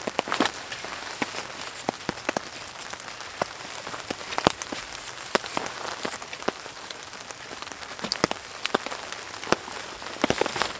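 Steady heavy rain, with many loud single drops striking close by at irregular moments.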